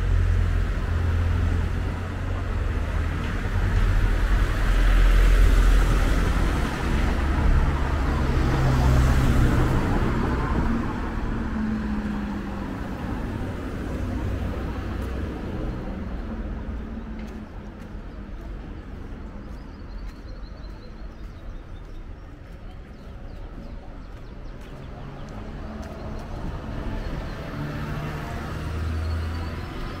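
A car passing on the street: engine and tyre noise swell to a peak about five seconds in and die away by about twelve seconds. Quieter street background follows, with another low vehicle rumble near the end.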